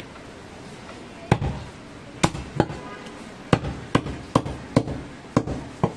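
Butcher's cleaver chopping goat meat on a wooden log chopping block. About nine sharp chops come in an uneven rhythm, the first a little over a second in.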